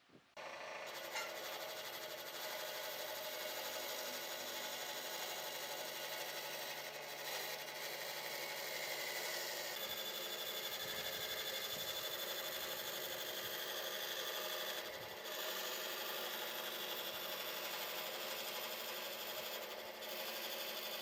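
A power tool starts up and runs steadily, with two brief dips in its sound.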